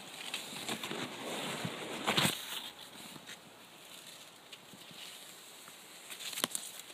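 Maize leaves rustling and swishing against the person and the phone while pushing through a standing maize crop, loudest about two seconds in, with one more sharp brush near the end.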